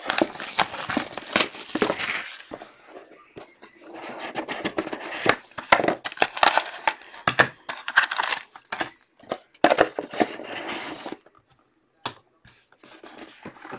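Plastic shrink wrap being torn and crinkled off a box of football cards, a busy run of tearing and crackling rustles that stops about eleven seconds in, leaving a few faint handling sounds.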